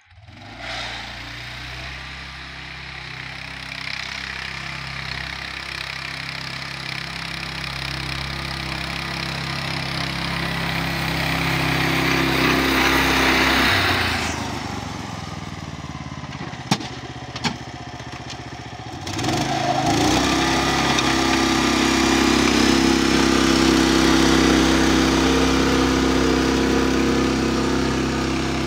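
Engine of a homemade articulated mini tractor running steadily while it pushes snow with its angled blade. The sound cuts off abruptly and turns quieter about halfway through, with two sharp clicks, then comes back louder a few seconds later.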